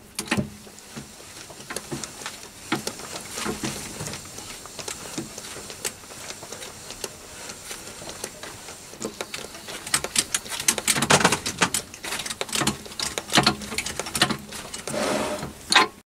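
Lathe chuck turned slowly to run a 6mm tap through the thread of a stainless steel nut, giving irregular clicks and scraping, busiest in the last few seconds; the tap is clearing the burr thrown up by countersinking the nut.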